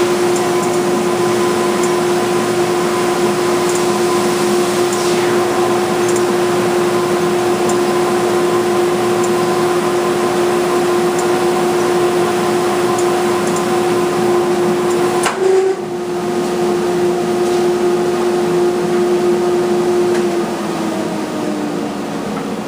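Wide belt sander running with a steady loud hum. About 15 seconds in there is a sharp click, and a few seconds later the hum slides lower in pitch and eases off slightly.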